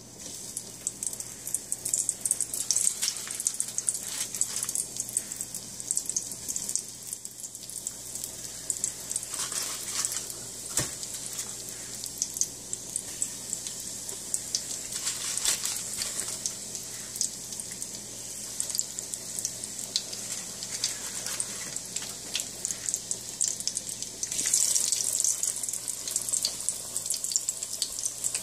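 Breaded potato balls deep-frying in hot oil in a pot, a steady sizzle full of small crackling pops. It gets louder near the end.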